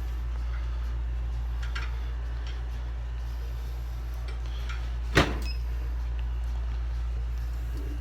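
Heat press plugged in and heating up: a steady low electrical hum, with one sharp click about five seconds in.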